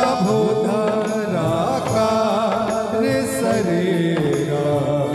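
Devotional bhajan music: male voices drawing out a long held, wavering sung line over a keyboard, with tabla and dholak strokes keeping the beat.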